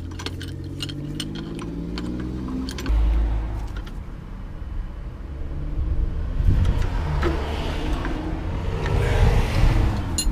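A motor vehicle's engine running nearby, with a low rumble; its pitch rises and falls over the first few seconds, then a broad rushing noise swells in the second half.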